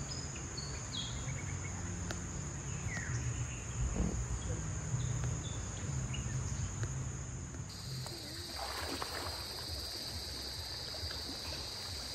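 Riverside ambience: a steady high insect drone over the low rush of the river, with a few faint bird chirps. About eight seconds in, the insect drone abruptly shifts to a different pitch.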